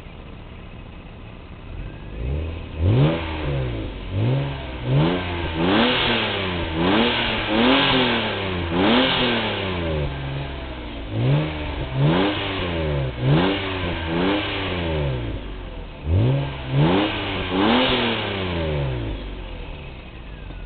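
Stock 1999 US-spec BMW M3's 3.2-litre inline-six, standing still with an unmodified exhaust. It idles, then is revved in a long series of quick throttle blips, about one a second with a couple of short pauses, each rev climbing and falling back, before settling to idle near the end.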